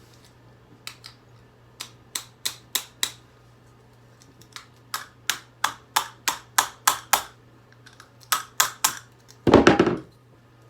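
A hairdryer being pried apart by hand: sharp plastic clicks and snaps in runs of several, about three a second, then a louder crunching crack near the end as a piece breaks off.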